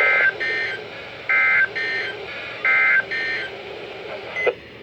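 NOAA Weather Radio EAS end-of-message tones: three short bursts of warbling two-tone digital data about a second apart, each followed by a fainter copy. They are the SAME 'NNNN' code that marks the end of the warning broadcast.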